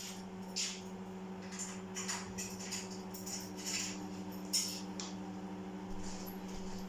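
Microwave oven running on high: a steady hum, with a few brief crackles scattered over it.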